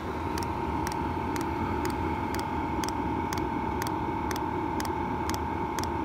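Chinese diesel air heater running through its startup cycle: the blower fan gives a steady whirr with a high whine, and the fuel dosing pump ticks about twice a second as it meters diesel to the burner.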